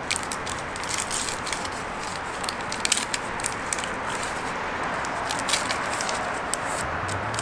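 Paper chopstick wrapper crinkling and tearing as it is opened and the chopsticks are pulled out: many small, irregular sharp crackles over a steady background hiss.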